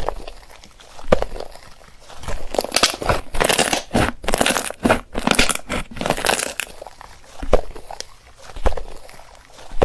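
Slime being pressed and pulled by hand, giving sharp pops about once a second, with a denser crackling stretch through the middle.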